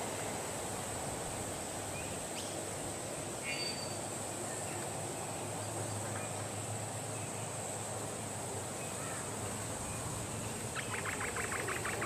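Steady forest background hiss with a high, even band of sound and a few faint, brief bird notes. Near the end, a rapid rattling train of pulses as a three-wattled bellbird starts to call.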